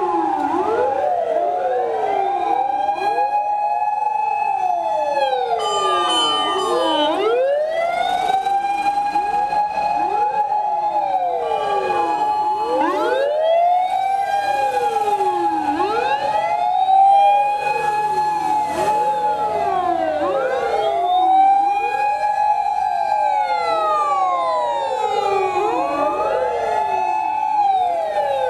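Sirens of many Japanese fire engines wailing together, each climbing to a held high note and sliding back down, overlapping out of step with one another.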